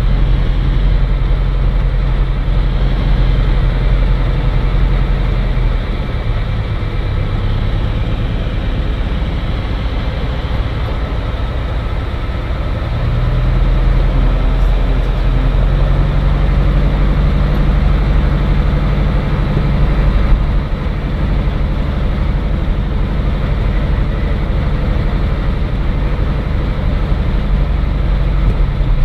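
Cirrus SR20's four-cylinder Lycoming piston engine running, heard from inside the cockpit. The engine note drops about six seconds in and comes back up to a steady, louder level about seven seconds later, as power is reduced and then increased.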